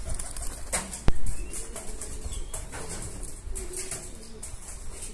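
Pigeons cooing in low, wavering calls. A single sharp click sounds about a second in, over a low rumble.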